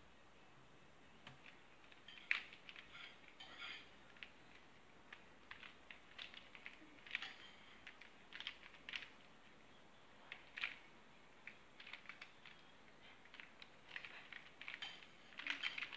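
Square-1 puzzle being turned and sliced fast, its plastic layers clicking and clacking in quick irregular bursts. A single key tap comes about a second in.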